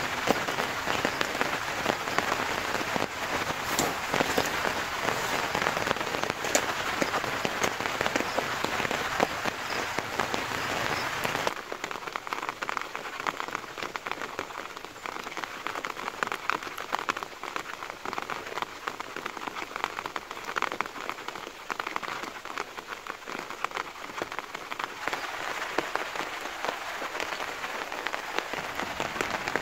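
Rain drumming on a tent's nylon fly and the tarp stretched over it, a dense, steady patter of drops. About twelve seconds in it changes abruptly to a thinner, lighter patter in which single drops stand out.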